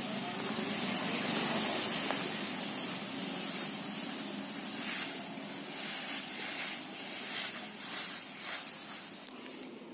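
Bare feet shuffling through a layer of drying paddy rice, the grain rustling with a hiss. In the later part each step gives a separate swish, about two a second.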